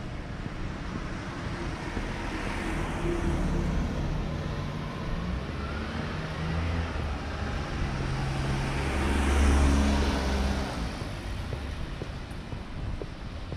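A car drives past, its engine and tyre noise swelling to a peak about two-thirds of the way through and then fading.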